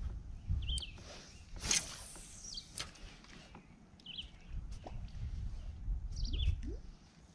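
A bird repeatedly gives a short, sharply bending call every second or two over a low rumble, with a few sharp clicks or knocks, the loudest about a second and a half in.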